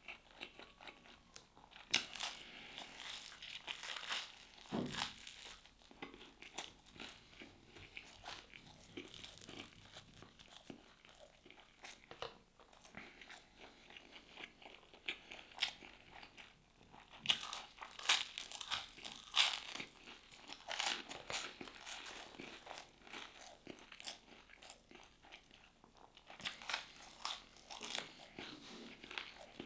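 A person chewing and biting into crisp food close to the microphone, wet crunches coming in clusters with quieter chewing between.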